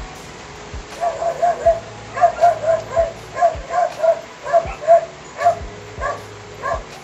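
A run of about fifteen short, high yelping calls, two or three a second with a few short pauses, starting about a second in. Steady background music with a low beat runs underneath.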